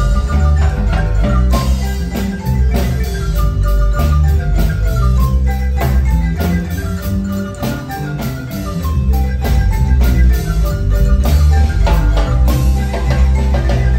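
Marimba band playing dance music: quick runs of struck wooden-bar notes over a strong bass line.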